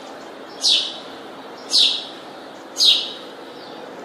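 A bird repeating one short, high call that slides downward in pitch, about once a second, three times.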